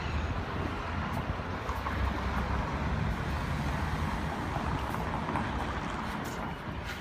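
Steady outdoor background noise: a low rumble under a general hiss, with a few faint clicks.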